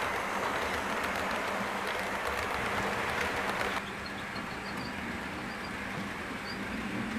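HO scale model trains running on layout track, a steady rattling rumble of wheels and motors with a low hum. About four seconds in the sound cuts abruptly to a quieter rumble with a few faint high squeaks.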